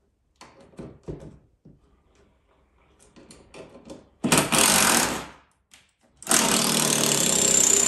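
Handheld power tool run in two bursts, the first about a second long and the second about a second and a half, after a few light knocks and clicks of handling.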